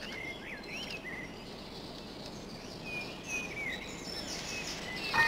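Woodland ambience: birds calling with scattered short chirps, over a faint steady high hiss like insects that sets in about two seconds in. A chiming note sounds at the very end.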